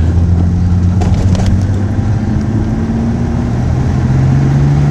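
Nissan Skyline GT-R R33's twin-turbo RB26DETT inline-six running while driving, heard from inside the cabin. It holds a steady low engine note, then rises slowly in pitch from about three and a half seconds in as the car accelerates.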